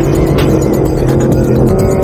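Yamaha R1 inline-four engine held at high, steady revs, giving a constant high-pitched note over a rough low rush.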